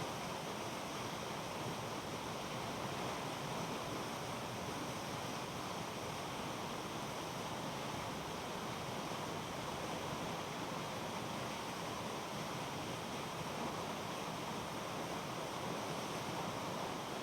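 A waterfall's water falling, a steady, even rush with no breaks.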